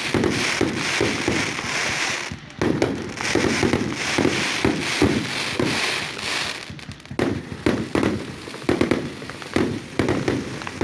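Fireworks going off in a rapid, continuous barrage of bangs and crackles, with short lulls about two and a half seconds in and about seven seconds in.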